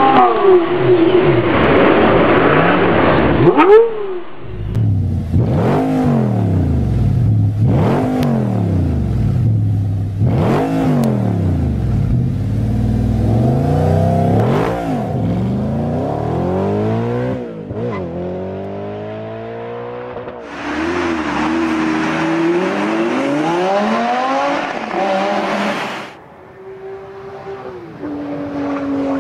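High-performance car engines revved through the exhaust in a run of separate recordings. In one, the engine is blipped up and allowed to fall back about five times, roughly every two seconds. Another car follows with a harsher, hissier exhaust note, then a steadier running note.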